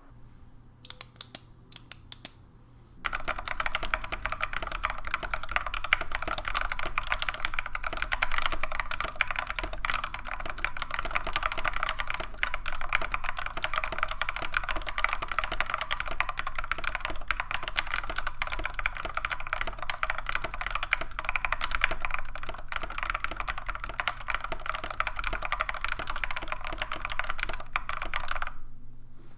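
Typing on a Lofree 1% transparent mechanical keyboard with factory-lubed Kailh Jellyfish linear switches in a polycarbonate case. A few separate keystrokes at first, then about three seconds in, steady fast typing that stops shortly before the end.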